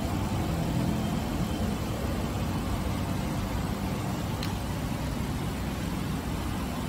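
Steady low background rumble, with a brief faint rising whistle about four and a half seconds in.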